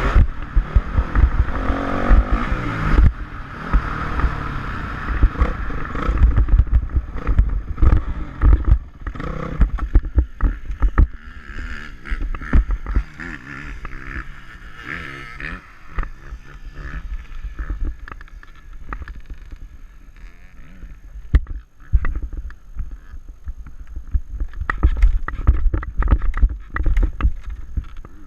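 Motocross bike engine running and changing pitch, with wind buffeting the microphone and heavy low thumps throughout.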